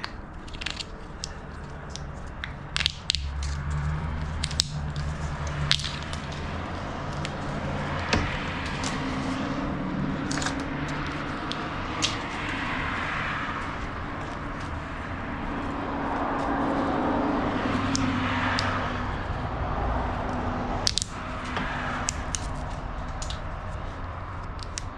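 Irregular sharp clicks and knocks from handling copper wire and its stripped-off scraps, over a steady low hum. A rushing sound swells and fades about midway through.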